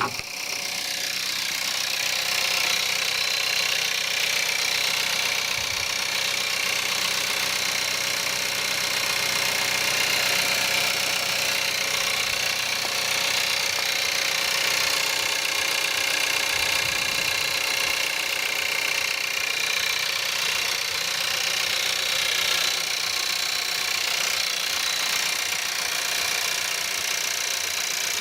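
Skoda Octavia 1.4 TSI petrol engine running steadily after a cold start at −5 °C, with a rattling clatter that makes it sound like a diesel.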